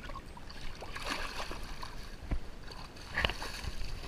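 Pool water splashing and sloshing as an Australian Shepherd swims and climbs out of the pool, with a couple of sharp knocks in the second half.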